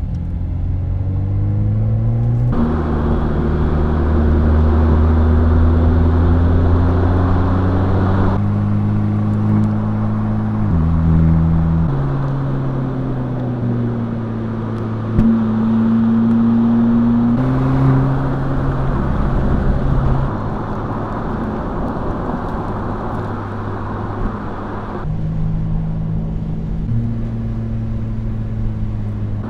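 Mercedes-AMG SL 43's two-litre turbocharged four-cylinder engine running under way. Its note rises slowly as the car pulls, then shifts abruptly in pitch several times.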